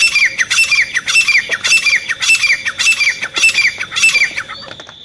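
Grey francolin (desi teetar) calling: a rapid, even series of loud ringing notes, about two a second, each falling in pitch, stopping about four and a half seconds in.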